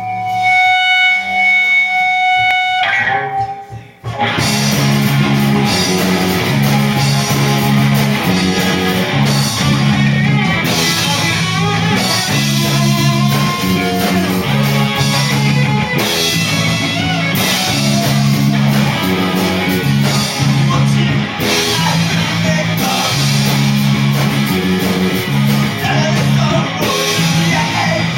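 Rock band playing live, electric guitar to the fore. It opens on a held sustained chord, then the full band comes in about four seconds in with a steady repeating bass pattern.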